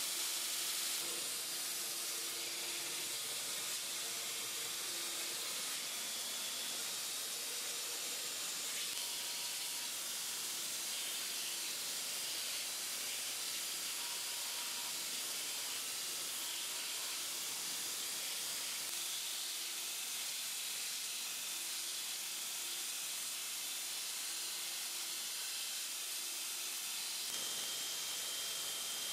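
Belt grinder sanding a hard Alumilite resin and paper-towel knife handle: a steady, high-pitched hiss of the abrasive belt against the resin.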